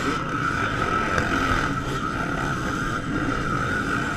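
Many off-road motorcycle engines running at once as a large pack rides past, making a steady, buzzing drone.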